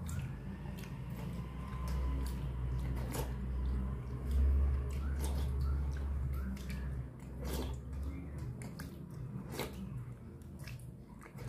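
A hand squishing and mixing water-soaked rice in a steel bowl: wet squelches with scattered clicks and taps of fingers against the metal, over a low steady hum.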